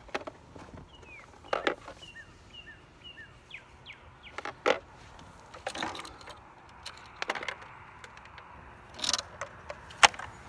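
Scattered sharp clicks and knocks of hands working the mirror's wiring connector and plastic parts inside a car door, the loudest near the end. A bird chirps a run of short high notes a second or so in.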